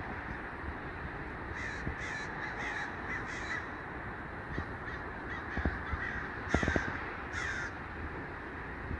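American crows cawing as a flock flies over: a quick run of short, harsh caws, then a few fainter ones, then two louder caws near the end, over a steady background hiss.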